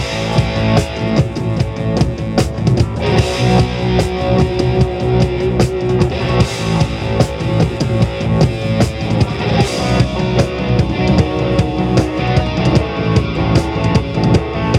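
A rock band's instrumental break: drum kit keeping a steady beat with bass drum and snare, under electric guitar and bass, with crash cymbals ringing out a few times.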